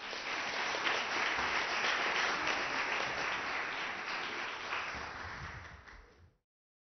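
Audience applauding. The applause fades over its last second and cuts off abruptly about six seconds in.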